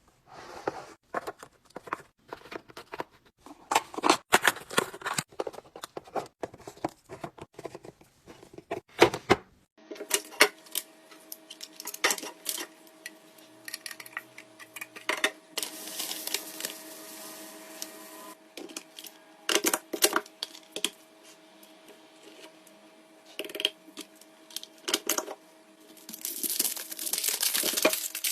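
Food packages and containers being handled and set down: a run of clicks, taps and light knocks with rustling and tearing of packaging. Partway through, a steady low hum sets in behind them, and a louder rustling, hissing stretch comes near the end.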